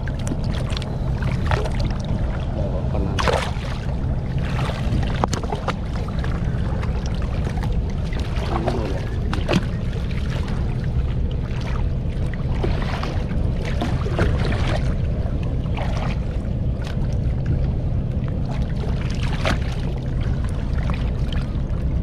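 Hands splashing and sloshing in shallow river water among stones, in short irregular splashes over a steady low rumble.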